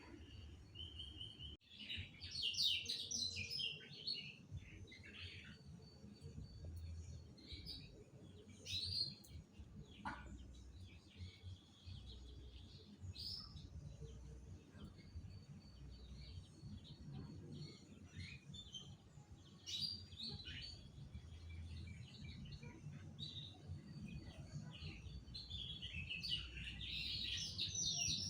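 Songbirds singing in repeated clusters of quick, high chirps and trills, loudest about two seconds in and again near the end, over a low background rumble.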